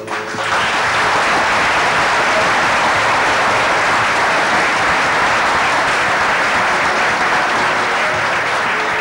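Audience applauding: a large round of hand-clapping that starts suddenly and holds steady, easing a little near the end.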